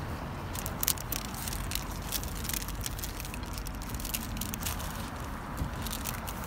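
Close handling noise: jacket fabric rustling and scattered short clicks as a baseball bat is handled, over a steady low outdoor rumble.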